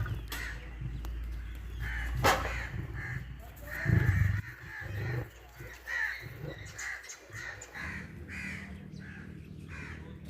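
Crows cawing repeatedly in short harsh calls, with a sharp click a little over two seconds in and a deep low rumble about four seconds in.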